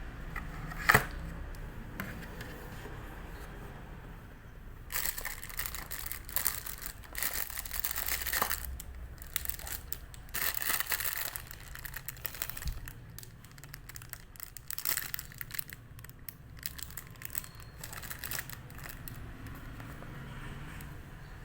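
Packaging being unwrapped by hand: plastic and paper crinkling and tearing in irregular bursts, with a sharp click about a second in.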